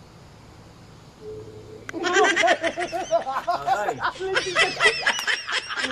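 People breaking into loud, repeated laughter about two seconds in, after a quiet stretch of open-air background.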